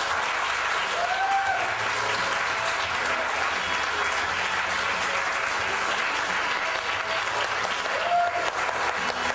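Audience applauding steadily, with two short rising-and-falling calls from the crowd, about a second in and near the end.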